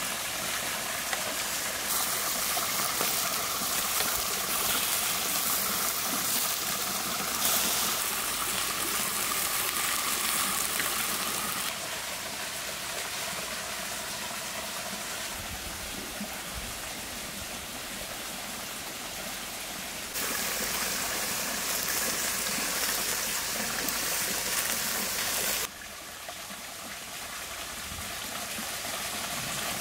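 Steady rushing of a small stream and waterfall, its loudness stepping up and down abruptly several times.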